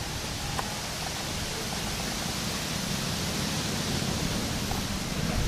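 Steady rushing of gusty wind through trees, with low rumbling buffets of wind on the microphone.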